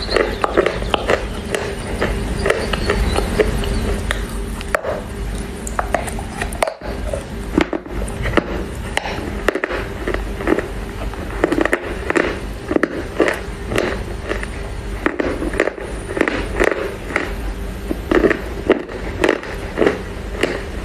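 Close-miked biting and chewing of wet Chinese loess clay: repeated crisp crunches, sparse at first and then coming regularly at about two a second in the second half, over a steady hum.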